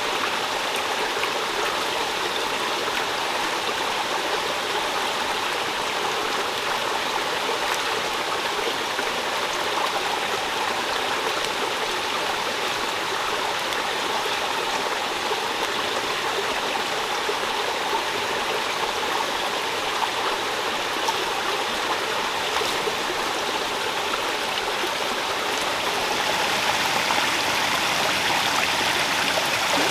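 Small rocky forest stream running: a steady rush and trickle of water that gets a little louder near the end.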